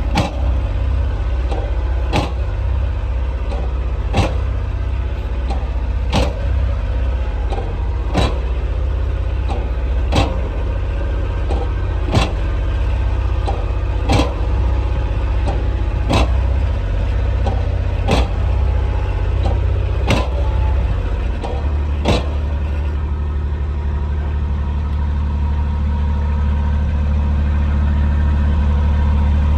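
Farm vehicle's diesel engine running steadily, with a sharp click about every two seconds for the first twenty-odd seconds; after the clicks stop the engine hum evens out and grows a little louder near the end.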